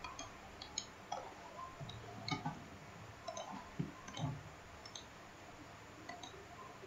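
Computer mouse button clicks, a dozen or so at irregular intervals, as points of a curve are placed in the drawing program. A few faint low thuds come in the middle.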